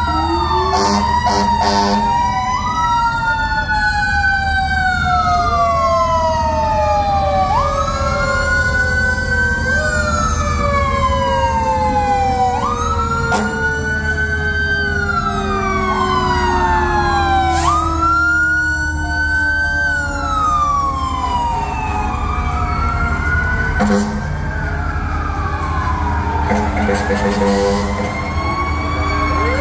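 Fire truck sirens, several at once: one rises quickly and falls off slowly, over and over about every two and a half seconds, over the long, slow wind-down of a mechanical siren like a Federal Q. Steady air horn blasts join in near the end.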